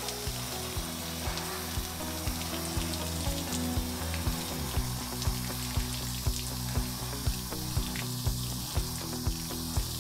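Water spraying onto hanging synthetic brush pants, a steady hiss, over background music with a steady beat of about two pulses a second.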